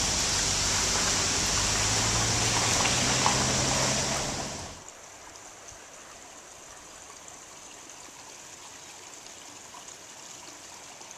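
Waterfall water rushing, loud and steady, with a low steady hum under it. About five seconds in it cuts off abruptly, leaving only a faint steady hiss.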